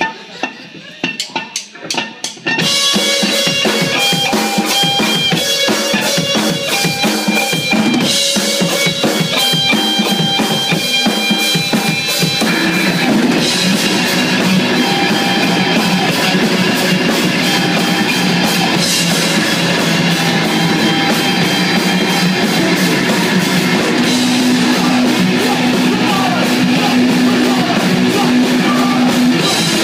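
Live rock band playing loud through amplifiers. A few separate drum hits open, then electric guitar, bass guitar and drum kit come in together about two and a half seconds in. The playing grows denser about twelve seconds in.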